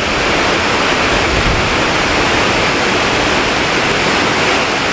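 High waterfall, a single drop of just over 100 feet, in spate after torrential overnight rain: a loud, steady, thundering rush of falling water.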